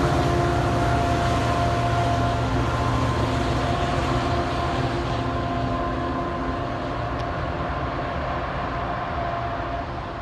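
MBTA train running, a steady rumble with several held whining tones over it, slowly getting quieter.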